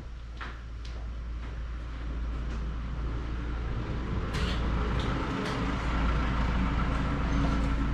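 A motor vehicle's engine running and getting steadily louder, with a few sharp clicks and knocks over it.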